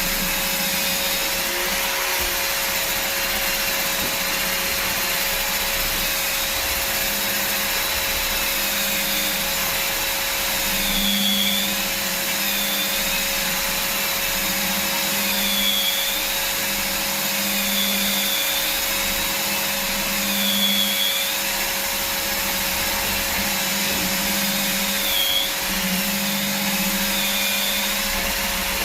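Evolution R225DWS drywall sander running with its dust-extraction suction, a steady motor whine and rushing air. Every few seconds the whine dips briefly in pitch and then recovers.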